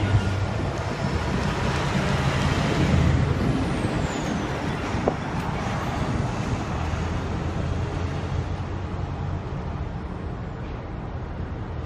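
Steady low diesel rumble of a CP GP22ECO locomotive approaching slowly on the spur, with a single short click about five seconds in.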